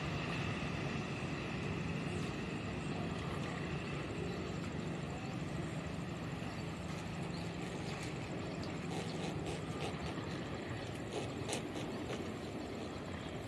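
Distant container freight train running away down the line: a steady rumble with a low hum that fades out about two-thirds of the way through.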